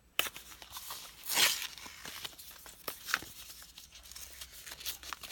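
Cosmetic product packaging being torn and crinkled open by hand: scattered crackles with a louder rip about a second and a half in.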